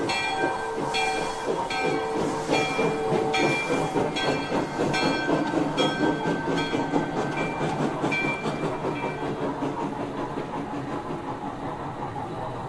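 Sound system of a Broadway Limited model NYC J-1e Hudson steam locomotive playing recorded steam effects through its small speaker: rhythmic chuffing with steam hiss, with a short held whistle note near the start and a repeating high ringing tone over roughly the first half, the chuffs quickening and fading toward the end.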